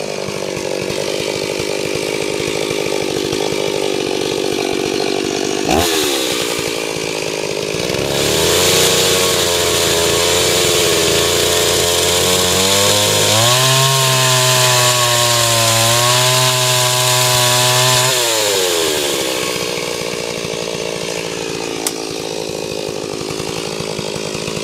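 Stihl MS 381 two-stroke chainsaw with a 36-inch bar running at idle, then throttled up about eight seconds in. Its revs climb higher around thirteen seconds, hold steady, and fall back to idle near nineteen seconds. There is a single sharp click about six seconds in.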